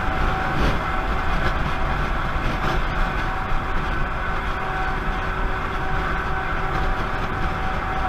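Steady road noise of a car cruising at highway speed, heard from inside the cabin: tyre and wind rumble, with a faint steady high tone running through it.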